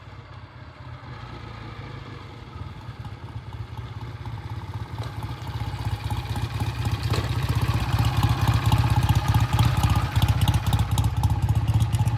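BSA A65 Lightning's 650 cc parallel-twin engine running as the motorcycle rides up at low speed, growing steadily louder as it comes close, its exhaust beat sharpest near the end. It is sounding good after a fresh head gasket and carburettor setting.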